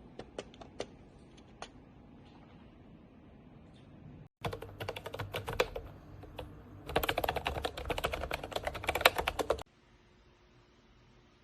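Typing on a wireless keyboard with vintage-style round keycaps: a few scattered key clicks, then two runs of rapid typing, the second longer, which stop suddenly near the end.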